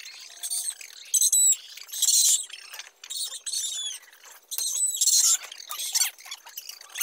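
Small birds chirping in repeated short, high bursts.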